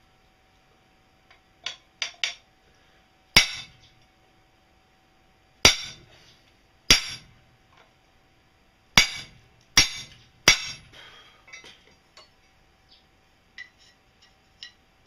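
Hammer blows on metal: about nine irregularly spaced strikes, three lighter ones followed by six hard ones, each with a short metallic ring. Near the end come a few faint clinks of metal parts being handled.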